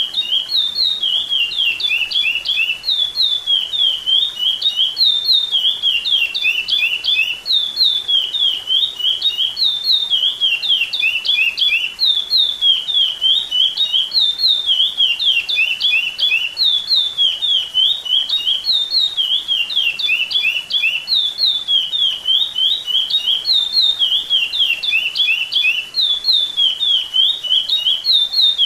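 Chestnut-bellied seed finch (curió) singing the repeating 'repetidor' training song: fast series of clear, downslurred whistled notes grouped in the same phrase, repeated over and over without a pause.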